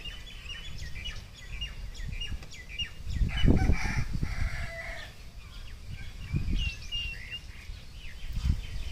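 Many short, high bird chirps throughout, with a rooster crowing once for about a second and a half, about three seconds in. Low rumbling underneath, loudest as the crow begins.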